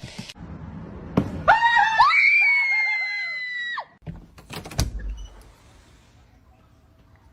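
A cat screeching: a shrill, rising cry that holds high for about two seconds and cuts off sharply. A couple of knocks follow.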